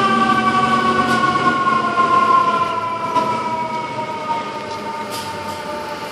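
Fire engine siren on FDNY Engine 273: one long tone with several overtones, its pitch sliding slowly down and its level easing off as the truck pulls away.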